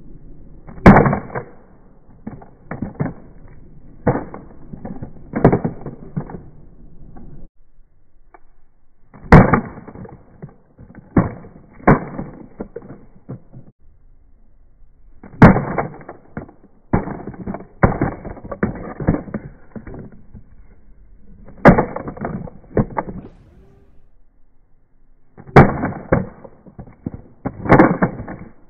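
A Movi smartphone gimbal dropped repeatedly onto asphalt: about six hard impacts a few seconds apart, each followed by a clatter of smaller knocks as it bounces and tumbles on the pavement.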